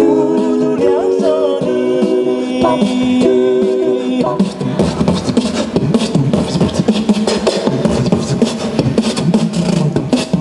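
A cappella vocal music: several long held sung notes for about four seconds, then a fast rhythmic section of beatbox-style vocal percussion.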